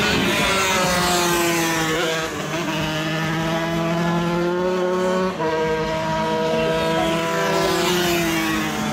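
125cc racing motorcycle engine revving hard under acceleration, its pitch climbing steadily and dropping sharply at upshifts about two seconds in and again past five seconds, then climbing once more.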